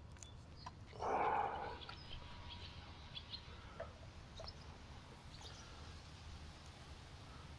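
Faint outdoor ambience: birds chirping now and then over a steady low hum, with a brief louder rushing noise about a second in that lasts well under a second.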